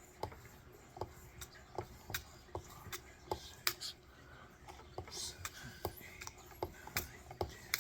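Light clicks, about two or three a second, with faint scraping: a fine 3M lapping-film stone holder on a Work Sharp Precision Adjust sharpener being pulled down a knife edge stroke after stroke, at the mirror-polishing stage.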